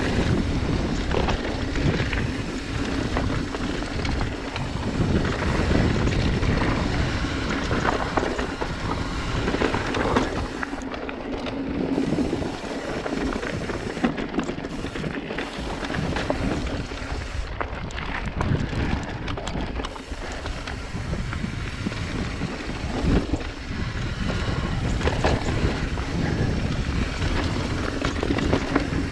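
Mountain bike riding along a rocky dirt singletrack, heard from a chest-mounted action camera: tyre noise over dirt and stones, the bike rattling over bumps, and wind rushing over the microphone.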